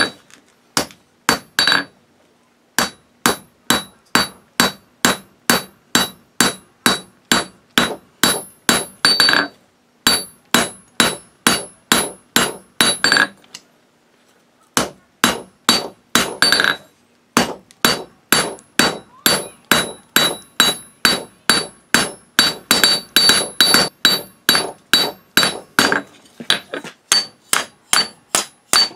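Hand hammer striking a red-hot steel bar on an anvil, drawing out a gradual taper: steady blows about two a second, each with a bright metallic ring, in several runs broken by short pauses.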